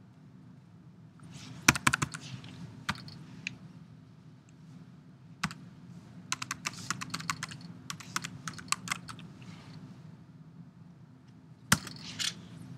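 Typing on a computer keyboard: a few key taps about two seconds in, then a quick run of keystrokes, and one louder click near the end, over a faint steady low hum.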